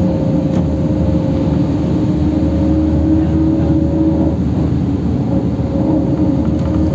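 Inside a LiAZ 529265 low-floor city bus on the move: a steady rumble of engine and tyres on the road, with a constant whining tone over it.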